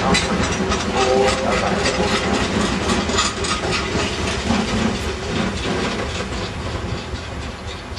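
Loaded scrap box wagons rolling past, steel wheels clattering rapidly over rail joints and pointwork, fading steadily as the train draws away. A brief wheel squeal sounds in the first second or so.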